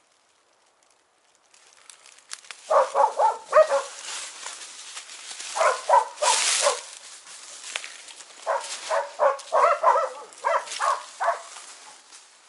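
Laika hunting dogs barking in quick runs of short, fairly high barks, in three bouts with pauses between them. A brief hiss comes about six seconds in.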